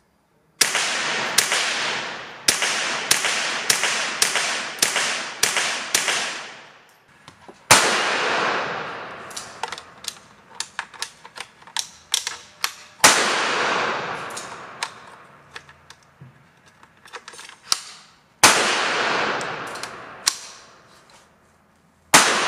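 Semi-automatic .22 LR rifle shots, a Baikal MP161-K: a fast string of about two shots a second for the first six seconds, then single shots spaced several seconds apart with fainter shots between them. Each shot rings on briefly after the crack.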